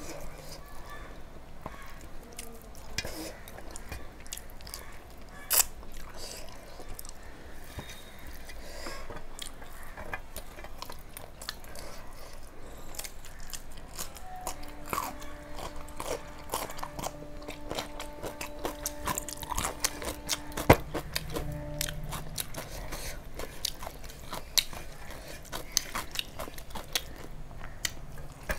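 Close-up eating sounds: chewing and biting with crunches and mouth clicks, including a bite of raw cucumber about halfway through, and fingers scraping rice across a stainless steel plate. In the middle a steady droning tone sounds for about seven seconds, and a sharp click near its end is the loudest sound.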